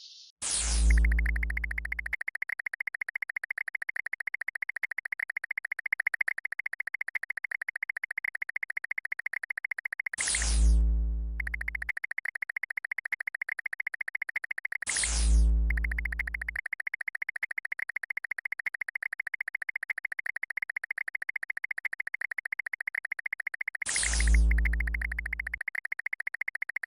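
Synthesized sound effects: a rapid, steady high-pitched electronic chirping, broken four times by a quick falling zap with a deep low hum lasting about a second and a half.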